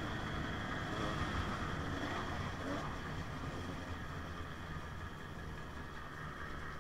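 Two-stroke single-cylinder engine of a KTM 150 XC-W dirt bike running steadily while riding a dirt trail, gradually getting a little quieter.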